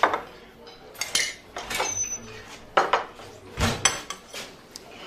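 Dishes and cutlery clattering: a run of separate clinks and knocks, one with a short high ring about two seconds in and a heavier thump about three and a half seconds in.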